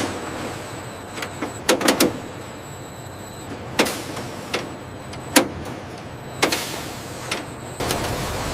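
Factory machinery running with a steady hum and a thin high whine, with several sharp metallic clanks and knocks at irregular intervals.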